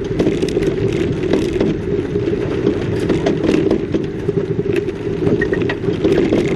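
Car driving along a rough road: steady road and engine noise with frequent small knocks and rattles.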